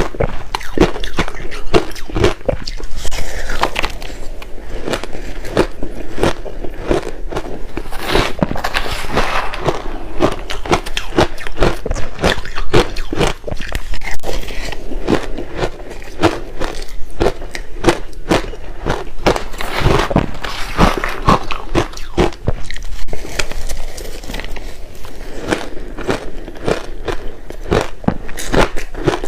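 Close-miked biting and chewing of crushed ice: a dense, irregular run of sharp crunches and cracks as the ice is bitten and ground between the teeth.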